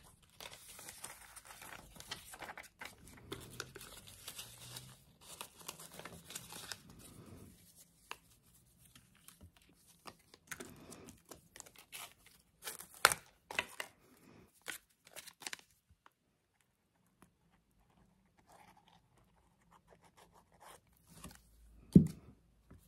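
Paper pages of a handmade junk journal rustling and crinkling as they are turned and handled, dense at first and then thinning to scattered clicks and taps, one sharp click about halfway. Near the end comes a single louder knock as something is set down on the cutting mat.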